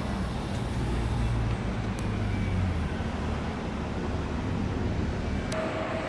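Road traffic noise: a steady rumble of passing vehicles, heaviest in the first three seconds, with a sharp click about two seconds in and another near the end.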